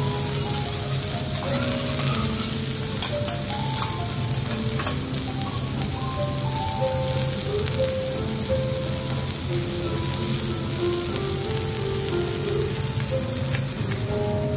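A5 wagyu steaks sizzling steadily as they sear on a hot steel teppanyaki griddle.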